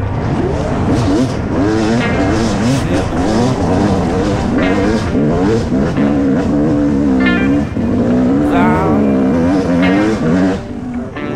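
Yamaha YZ250 two-stroke dirt bike engine on a trail ride. The engine note rises and falls repeatedly as the throttle is worked, with several sharp climbs in pitch.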